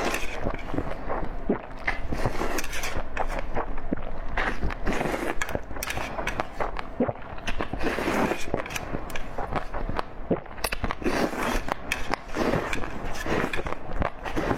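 Close-miked eating: a person chewing with mouth open, a steady run of irregular wet clicks and smacks.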